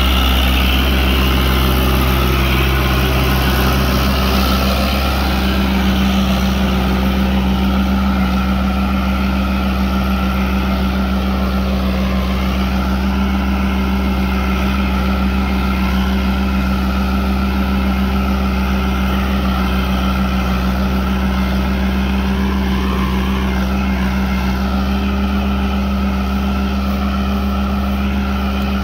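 Fiat 640 DT tractor's diesel engine running steadily under load while pulling a reversible plough through the soil. Its low hum grows stronger about five seconds in.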